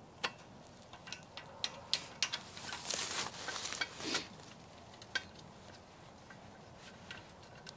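Metal clicks and clanks from a wheeled deer cart being handled and set up, with a stretch of rustling in dry grass about three seconds in.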